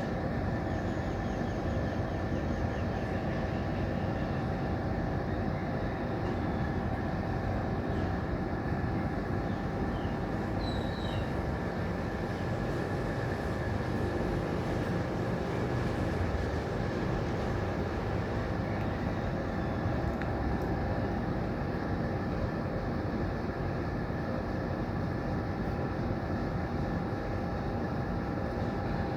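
Steady rumbling background noise with a constant hum, unchanging throughout, and a few brief high chirps about ten seconds in.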